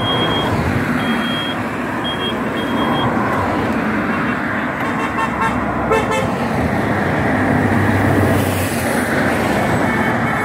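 Motor vehicle running with a steady rumble, with four short high beeps in the first three seconds and a sharp click about six seconds in.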